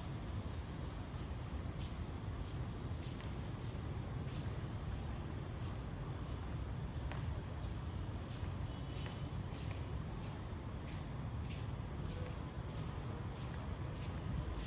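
Insects trilling steadily on one high note, with faint ticks about twice a second, over a steady low rumble.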